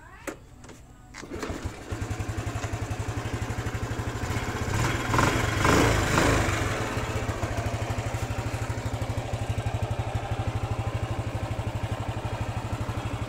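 Honda Cub's single-cylinder four-stroke engine being kick-started, catching about a second and a half in. It settles into an even, pulsing idle, is revved briefly around the middle, then drops back to idle.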